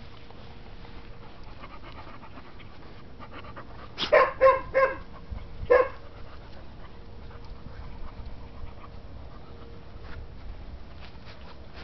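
English springer spaniel panting steadily while sniffing about. About four seconds in come four short, loud, pitched cries, three in quick succession and one more a second later.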